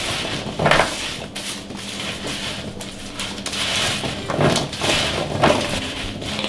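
Gloved hands tossing and spreading oiled beetroot sticks on a parchment-lined baking tray: an irregular rustling and shuffling of wet pieces on the paper, with a few louder rustles.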